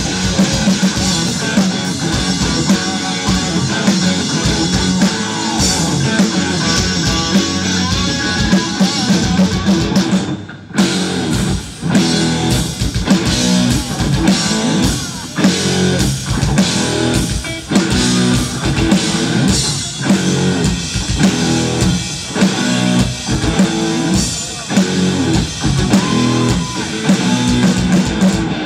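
Rock band playing live: electric guitars, bass and drum kit, heard from the audience. About ten seconds in the band cuts out for a moment, then plays a run of short stop-start hits together.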